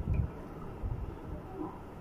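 Low, muffled rumble with a few soft thumps, the kind of handling noise a hand-held microphone picks up as it is moved.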